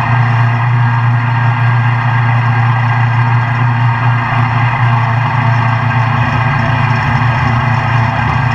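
Toro GrandStand stand-on mower's engine and cutting blades running at full speed while mowing grass: a steady, unchanging drone.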